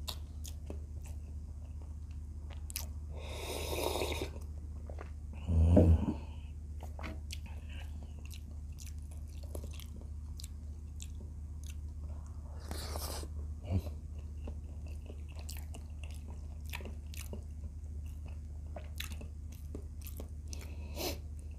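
Close-up chewing and biting of fried tilapia, rice and pakbet vegetables eaten by hand: a steady run of small wet mouth clicks and smacks. There are two short hissy noises, a thump about six seconds in, and a steady low hum underneath.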